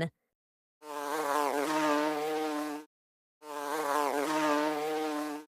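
Bumblebee buzzing in flight: two separate buzzes of about two seconds each, with a low, steady hum whose pitch wavers slightly as each one begins.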